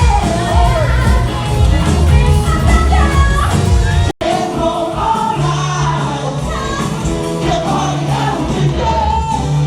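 Live pirate-themed rock band playing over a loud sound system, with singers and heavy bass; the music cuts out for an instant about four seconds in, then picks up again.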